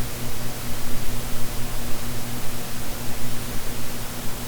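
Steady hiss with a low, steady hum underneath: unsuppressed room noise from a ceiling fan running overhead, picked up by a shotgun microphone.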